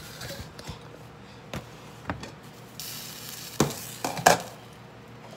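A few sharp knocks and clinks of things being handled and set down on a kitchen counter by a glass blender jar, the loudest about four seconds in, with a short hiss about three seconds in.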